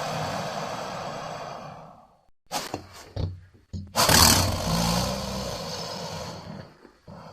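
Film creature sound effects for a giant mutated Komodo dragon. A noisy hissing growl fades out after about two seconds, a few short knocks follow, then a loud roar starts suddenly about four seconds in and trails off over about three seconds.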